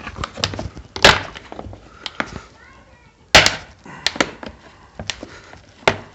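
Plastic retaining clips of a Briggs and Stratton lawn mower recoil starter snapping loose as a screwdriver pries them out: a few sharp cracks and clicks, the loudest about a second in and again at about three and a half seconds.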